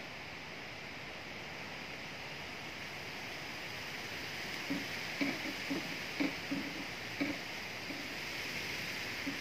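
Wind rustling through tree leaves, a steady hiss. From about halfway through, a run of short, low-pitched sounds comes in at irregular intervals.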